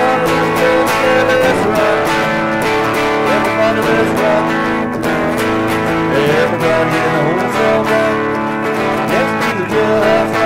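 Austin Telecaster electric guitar played through an amp: quickly picked single-note lead lines over ringing notes, with several string bends.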